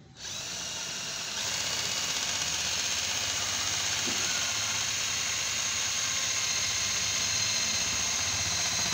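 Cordless drill running at a steady speed against the side of an electric room heater's sheet-metal body, picking up a little about a second and a half in.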